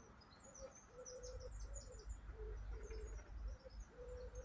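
A pigeon cooing, a repeated run of short low notes, with small songbirds chirping high above it. A low rumble, like wind on the microphone, rises in the middle.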